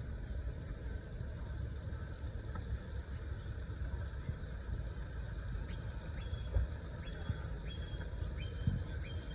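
Two knocks from the Darche Eclipse 270 awning's frame as it is folded away, the second near the end, over a steady low rumble.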